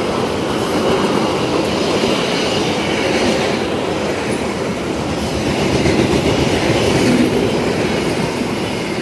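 Passenger coaches of a train passing close by: a steady loud rumble and clatter of steel wheels running over the rails.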